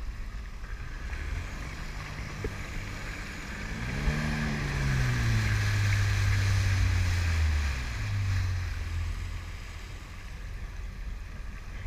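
Motor of a small watercraft in open swell, over a steady rush of water and wind. About four seconds in the engine note rises and holds steady, then drops back and fades out near nine seconds.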